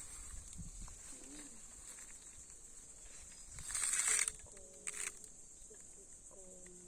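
Outdoor countryside ambience: a steady high-pitched insect buzz, with a loud rustling noise about four seconds in and a shorter one a second later, and faint short animal calls after it.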